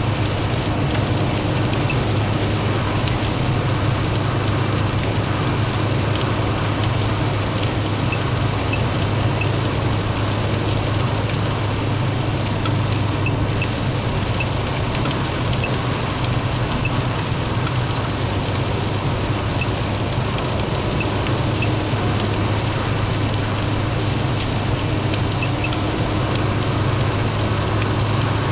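Steady road and engine noise heard inside a car cruising on an expressway, a constant low drone with tyre hiss.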